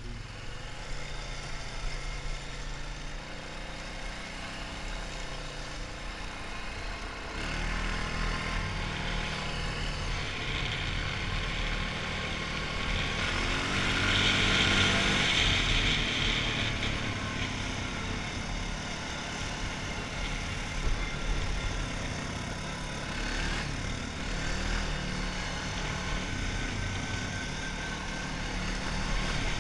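Honda 450 ATV's single-cylinder four-stroke engine running under way, heard close up from the rider's seat. The engine note steps up about seven seconds in and changes with the throttle, and a louder rush of noise comes in for a few seconds about halfway through.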